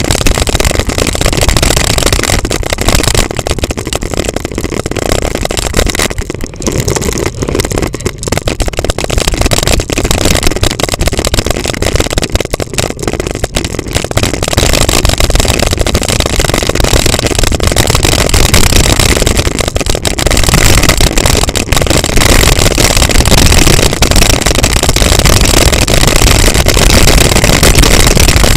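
Wind buffeting the camera microphone and a mountain bike's tyres rumbling and rattling over a gravel track on a fast downhill run. It is loud throughout and eases briefly twice, in the first half.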